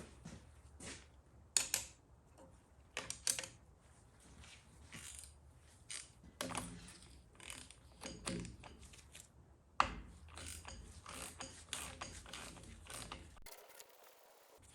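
Ratchet on a sensor socket clicking in irregular bursts while the oil pressure sending unit is unscrewed from a small-block engine, with scattered metallic clinks of tools.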